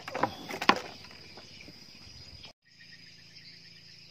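Steady high-pitched chirring of insects such as crickets or cicadas, with a few sharp knocks in the first second. The sound cuts out for a moment about two and a half seconds in, then the chirring carries on with a faint low hum under it.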